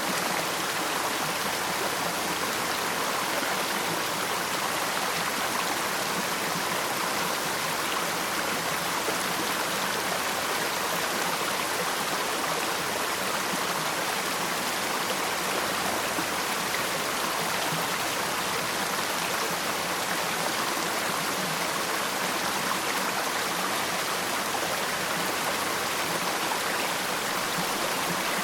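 Waterfall: falling water rushing steadily in an even hiss, with no change in level.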